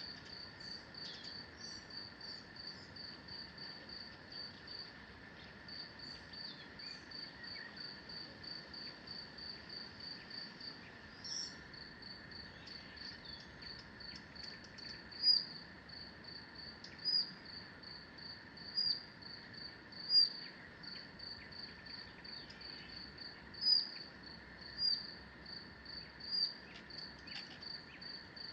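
Forest ambience of high-pitched chirping, a short chirp repeated evenly about three times a second over a faint, steady background drone. From about halfway through, louder single chirps break in every second or two.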